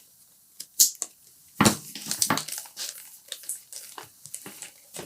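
Wires and small parts being handled on a workbench: irregular clicks, taps and rustling.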